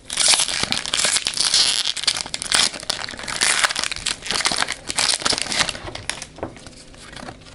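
Foil wrapper of a Pokémon booster pack crinkling as the pack is opened and the cards are slid out, easing off about six seconds in to quieter handling of the cards.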